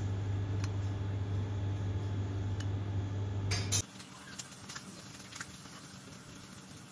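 Steady low hum with a few faint clicks, cutting off suddenly just before four seconds in and leaving quieter room tone with a few faint ticks.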